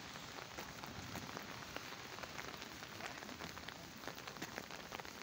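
Steady rain falling on a wet tarmac path and puddles, a continuous hiss dotted with many small, scattered drop patters.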